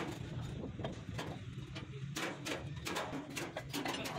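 Irregular metallic knocks and clanks, about four a second, from work on a dumper truck's leaf-spring suspension.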